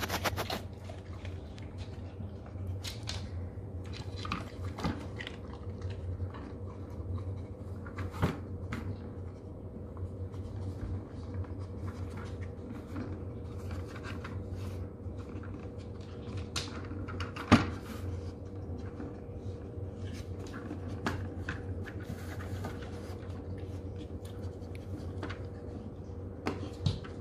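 Dog working a Trixie Flower Tower, a plastic spinning treat puzzle: scattered clicks and knocks as the plastic spinners are nosed around on their base, with one louder knock about two-thirds of the way through. A steady hum runs underneath.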